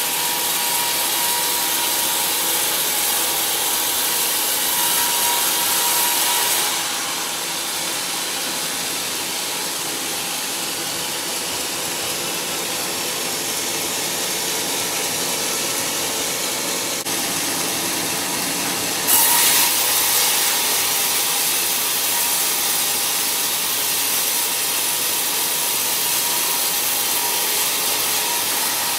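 Band sawmill blade cutting lengthwise through a large, knobbly log: a steady, hissing saw noise with a faint whine at first. The sound dulls and drops a little about seven seconds in, then turns brighter and louder again at about nineteen seconds.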